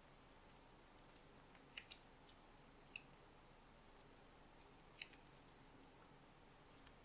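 Near silence broken by about four faint, sharp ticks: satin ribbon strips crinkling and snapping against fingers as they are tucked and pulled through a woven ribbon ball by hand.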